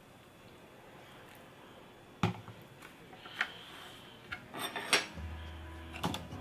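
Faint trickle of hot water poured into an instant-noodle cup, then a series of sharp clicks and knocks as the paper lid is pressed down and a ceramic plate is set upside down on the cup, the loudest knock about five seconds in.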